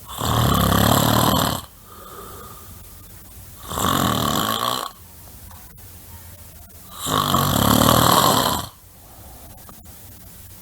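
A person snoring loudly in a steady rhythm: three long snores, each a second or more, about three and a half seconds apart, with faint breathing between them.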